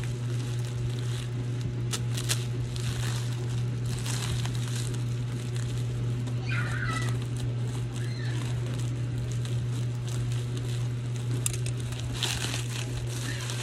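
Plastic parcel mailer bags crinkling and rustling in irregular bursts as they are handled and opened, over a steady low hum.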